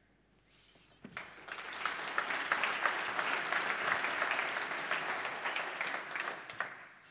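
Audience applauding, starting about a second in, swelling and then dying away near the end.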